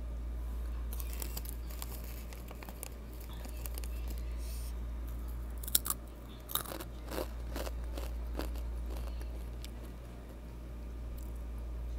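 Crunching and chewing of Takis rolled tortilla chips, with sharp bites loudest about six seconds in, over a steady low hum.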